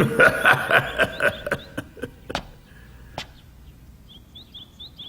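A quick run of sharp taps or knocks over the first two seconds, then a few spaced ones, with small birds chirping in short repeated calls, clearest near the end.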